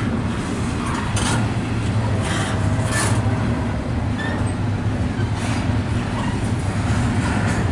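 Double-stack intermodal freight train passing: a steady rumble of the well cars rolling on the rails, with a few brief sharp noises about a second and three seconds in.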